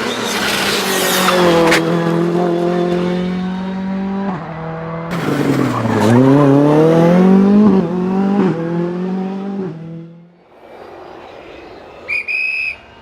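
Ford Fiesta R5 rally car's 1.6-litre turbocharged four-cylinder engine driven hard on a stage. The engine pitch steps through gear changes, falls to a low point about six seconds in as the car slows, then climbs again as it accelerates away. The engine sound fades out at about ten seconds, and a short high-pitched beep sounds near the end.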